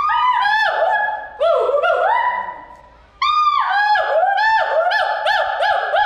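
Gibbon calling: a series of loud, clear whooping notes that each rise and fall in pitch. They break off for under a second near the middle, then start again as a quicker run of about three whoops a second.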